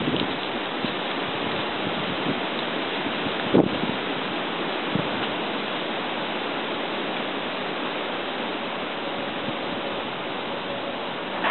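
Steady rushing noise of wind on the microphone, with a short knock about three and a half seconds in and a fainter one at five seconds.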